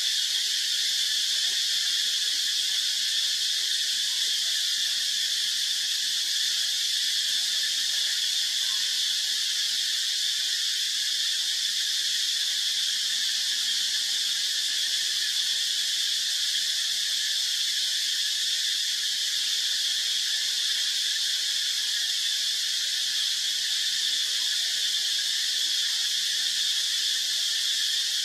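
Steady chorus of forest insects: an unbroken high-pitched drone at an even level throughout.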